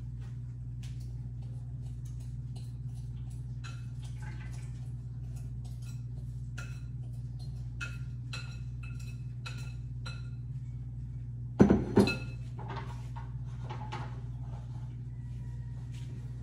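Kitchen handling sounds: scattered light clinks of dishes and utensils over a steady low hum, with one louder clatter about twelve seconds in.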